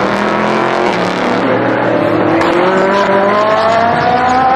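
GT race car engine accelerating hard, its pitch rising steadily for about three and a half seconds, then dropping back near the end as it shifts up a gear.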